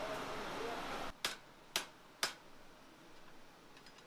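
Three sharp hammer blows on steel at the anvil, about half a second apart, each with a short ring. For about the first second there is a steady background rush, which cuts off just before the blows.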